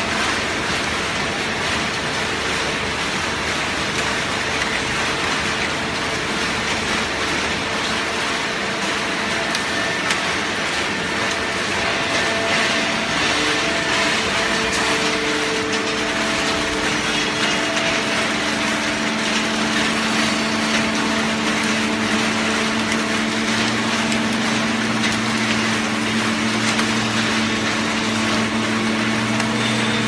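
Automatic horizontal hydraulic baler for waste carton running: a steady mechanical din, with a low hum that comes in and grows stronger in the second half.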